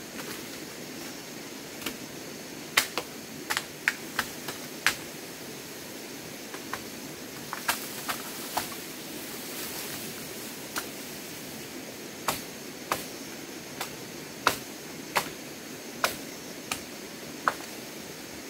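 A blade chopping into wood: sharp, irregular strokes, some in quick runs with short pauses between, as trees are cut down.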